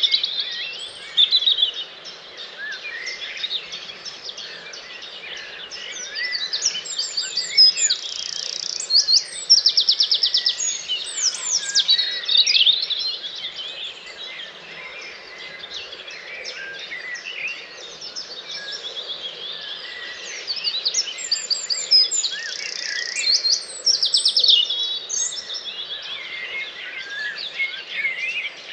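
Dawn chorus: many birds singing at once in a dense, overlapping mix of whistles, chirps and trills. A louder song with a fast trill stands out twice, near the middle and again later on.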